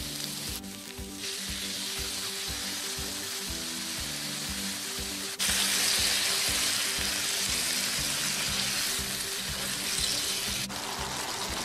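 Masala-coated eggplant pieces sizzling in a hot pan as hot water is added and stirred through with a spatula; the sizzle jumps louder suddenly about five seconds in. Background music with a steady beat plays underneath.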